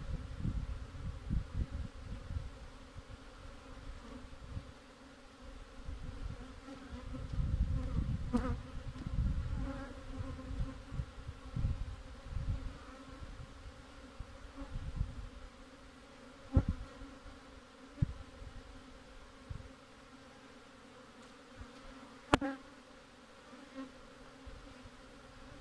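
Honeybees buzzing around an open hive, a steady hum, with bouts of low rumbling at times. A few sharp knocks stand out, the loudest about two-thirds of the way in and near the end, as wooden hive frames are handled.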